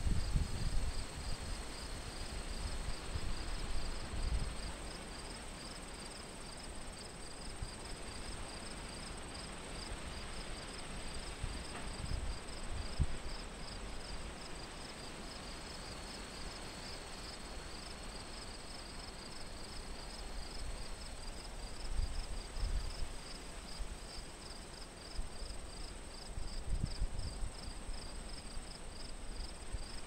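Field insects calling: a steady high-pitched trill alongside a rhythmic pulsing chirp at about two pulses a second. Wind gusts rumble on the microphone several times.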